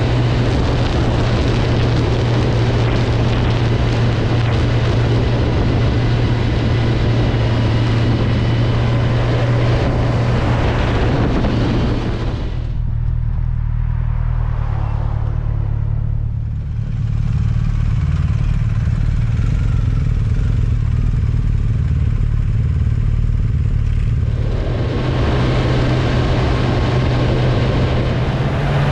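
Motorcycle engine droning steadily while riding, under a rush of wind and road noise. The wind noise drops away for about twelve seconds in the middle, leaving mostly the engine drone, then comes back.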